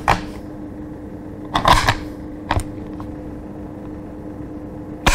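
Stiff bolt of a Carcano bolt-action rifle being worked, a short clatter about a second and a half in followed by a click, then a sharp single click near the end as the trigger is dry-fired. The bolt is stiff and dry, in need of oil.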